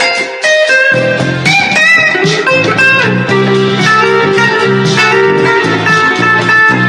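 Electric guitar playing a busy blues-style passage of quick plucked notes over a steady bass line.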